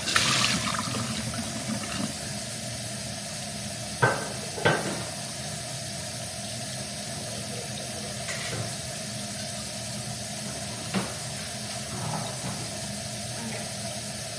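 Kitchen faucet running steadily into the sink, with a few clanks of cookware, two close together a third of the way in and one more later.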